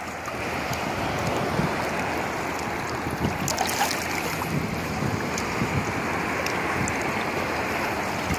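Steady wind noise on the microphone over sea water lapping and sloshing in the shallows, with a few faint small splashes as a gill net is drawn through the water by hand.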